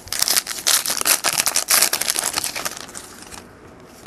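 Crinkling and tearing of a foil trading-card pack wrapper being handled, a dense crackle for about three seconds that then eases off.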